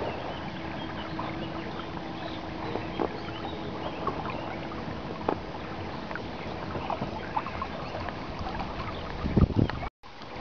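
Inflatable boat under way on choppy water: a steady rush of water and wind, with small splashes slapping against the hull and a couple of heavier thumps near the end.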